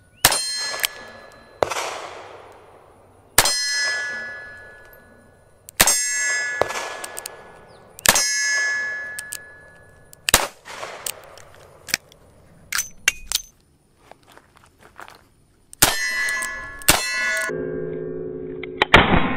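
Taurus 856 Defender .38 Special revolver firing a string of shots a second or two apart, each crack followed by a long metallic ringing like a struck steel target. There is a pause with a few light clicks, then two more shots, and steady background music comes in near the end.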